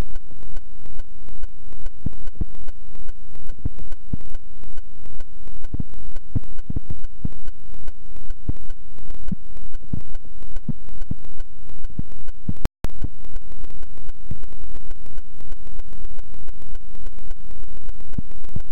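Loud, harsh electronic noise recorded by a GoPro camera, pulsing about twice a second. It is a one-off glitch that the camera has not repeated. The sound cuts out completely for a moment about thirteen seconds in.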